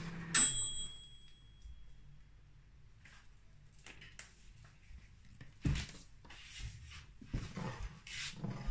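Kitchen handling sounds of a plastic cooking-oil bottle and a frying pan on a ceramic hob: a sharp clink that rings briefly, just after the start, then scattered light knocks and taps in the second half.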